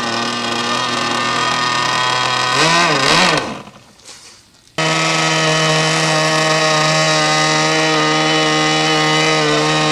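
Methanol-fuelled model engine driving the ducted fan of an RC L-39 Albatros jet, running at steady revs, then surging up and down about three seconds in and stalling. About a second and a half later it is running again, steady and higher in pitch.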